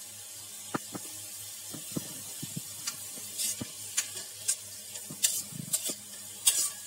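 A steel spatula scrapes and clinks irregularly against a stainless-steel kadhai as soaked urad dal is stirred and dry-roasted, over a faint steady sizzle of the dal in a little oil.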